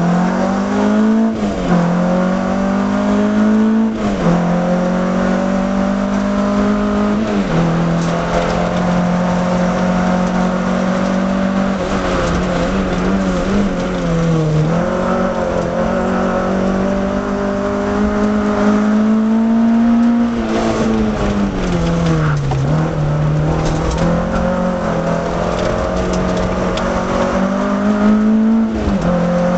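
Peugeot 305 GTX's 1.9-litre four-cylinder engine driven hard, heard from inside the car. Its note climbs and drops back sharply about six times as it changes gear and lifts for bends, with one longer fall about two-thirds of the way through.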